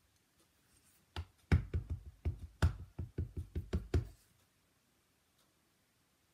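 Clear acrylic stamp block with a barbecue stamp tapped quickly and repeatedly onto a black Memento ink pad to ink it: a rapid run of about fifteen knocks over three seconds, starting about a second in and stopping near the two-thirds mark.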